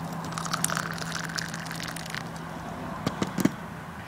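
Hot water poured from a kettle into a ceramic mug of plastic granules, splashing for about two seconds. A few sharp clicks follow about three seconds in.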